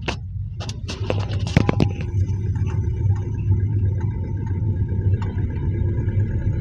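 Hyundai Verna car running with a steady low rumble and a faint steady whine, after a few sharp clicks and knocks in the first two seconds; no suspension knocking is heard once the rumble settles, the shock absorbers having been refilled and refitted.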